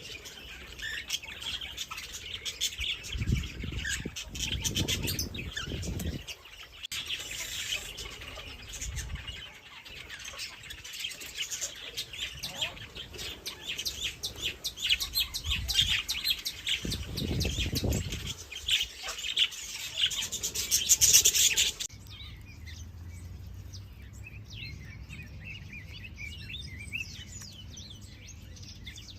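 Many small birds chirping rapidly and densely, with some low thumps mixed in. About three-quarters of the way through the sound changes abruptly to sparser, quieter chirping over a low steady hum.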